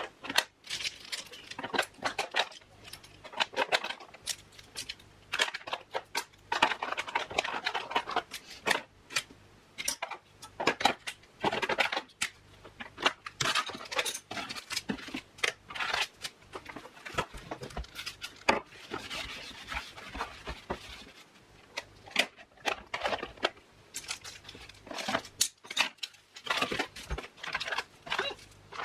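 Household items clinking and knocking as they are handled and set down, with short stretches of rubbing and rustling from cleaning in between.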